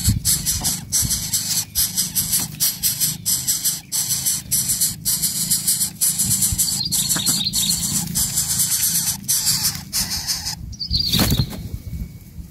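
Coucal nestlings begging with a hissing rasp in quick pulses while the parent feeds them. The rasping stops near the end, and a brief flurry of wingbeats follows as the adult flies off.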